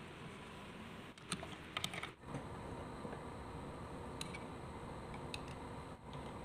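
A few light clicks and taps of metal parts being handled at a small benchtop lathe's toolpost, scattered over a steady background hiss, with a small cluster of them about a second in.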